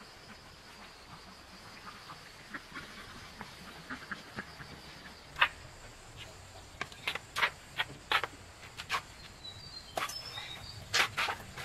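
Footsteps and knocks of a woman in sandals crossing a concrete yard and setting down a loaded woven basket, over a steady high insect drone. There are light ticks at first, then a dozen or so sharp slaps and knocks in the second half, loudest near the end, and a bird chirps about ten seconds in.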